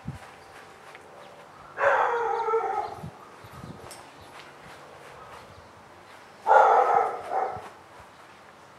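Two loud animal calls, each about a second long and several seconds apart.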